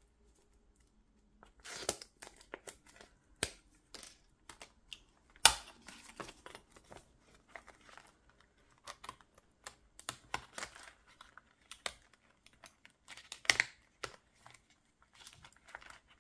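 Paper and clear plastic binder pockets rustling and crinkling as they are handled and leafed through, with scattered sharp clicks and taps; the sharpest click comes about five and a half seconds in.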